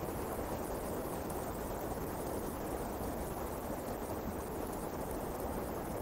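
Steady wind blowing through forest trees: an even, low rushing with no gusts or separate sounds.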